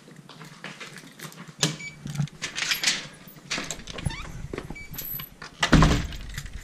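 Footsteps in slide sandals on a tiled floor, then the front door and its metal security screen door being unlocked and opened: a series of sharp clicks, knocks and rattles, with a loud bang near the end as a door is pulled shut.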